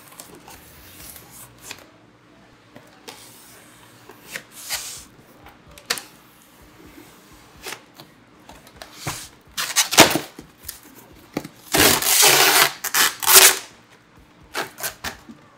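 Packing tape being cut and torn on a styrofoam shipping box, and the foam lid rubbing and scraping as it is worked loose. Scattered short scrapes and clicks give way to louder rough tearing and scraping bursts in the second half.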